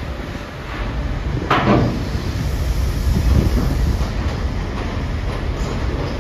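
Heavy vehicles rumbling low and steady, with one loud metallic clank about a second and a half in.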